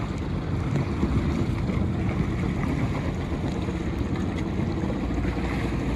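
Jet ski engines idling with a steady low rumble, mixed with wind buffeting the microphone on open water.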